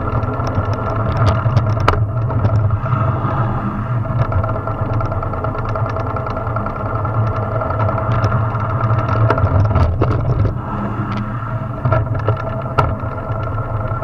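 Drift trike rolling fast down an asphalt road: a loud, steady rumble of its wheels on the road surface, with frequent short rattles and knocks from the frame.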